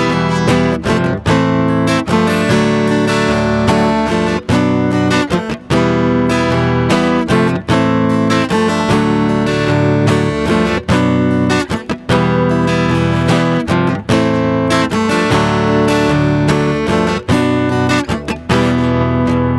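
Instrumental karaoke backing track: acoustic guitar strumming chords with regular changes, no vocals.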